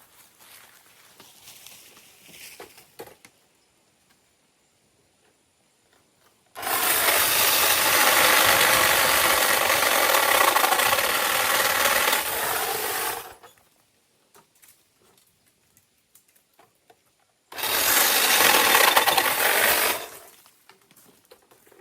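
A small electric power tool used for tree trimming, such as a battery saw, runs in two bursts: a long run of about seven seconds, its whine dipping in pitch just before it stops, then a shorter run of about two and a half seconds.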